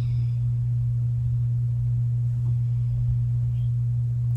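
A steady low electrical hum, one unchanging low tone with no rise or fall.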